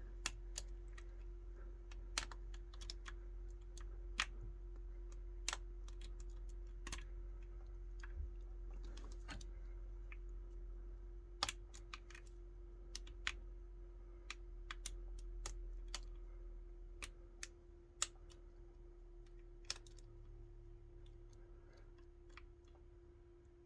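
Small, sharp clicks and ticks at irregular intervals as a lock pick works the wafers of a high-security wafer lock from a gumball machine. A steady faint hum runs underneath.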